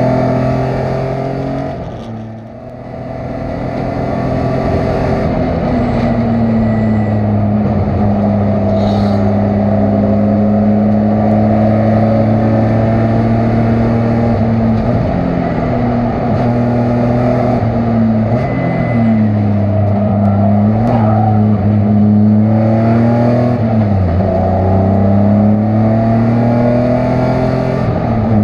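Endurance race car's engine running hard at fairly steady revs. The throttle lifts about two seconds in, with a brief drop in loudness and pitch, and the revs dip and climb again a few times in the second half, as for shifts and corners.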